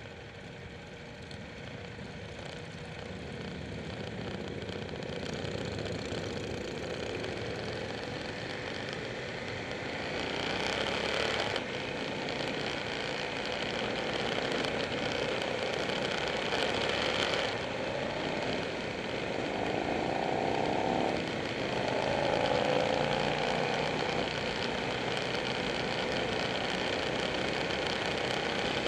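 Motorcycle engines running as a group ride pulls away from a stop and gathers speed, the sound growing steadily louder.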